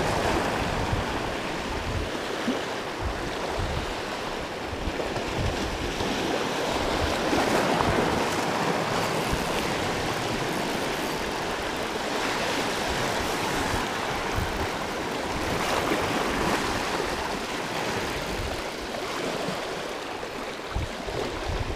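Sea water washing and splashing over shoreline rocks, swelling and easing with the waves, with wind rumbling on the microphone.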